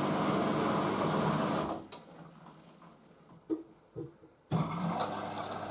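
Hoover washing machine's short 300 rpm intermediate spin: the drum motor hums steadily, then winds down and stops about two seconds in. Two small clicks follow, and about four and a half seconds in a steady hissing sound starts abruptly as the machine moves into its final rinse.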